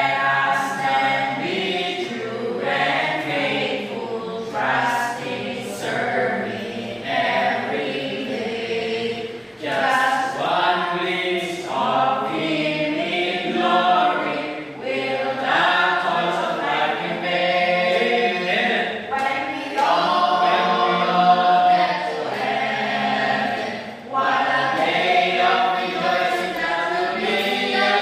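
Loud videoke (karaoke) singing: amplified voices holding and sliding between long notes, with only brief pauses.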